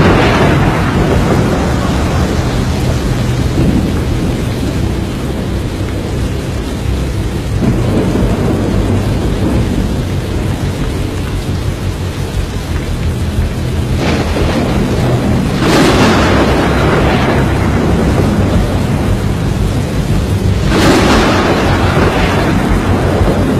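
Thunderstorm with a tornado: a steady loud rumble of wind and rain, with loud thunderclaps about two-thirds of the way in and again near the end, each fading slowly.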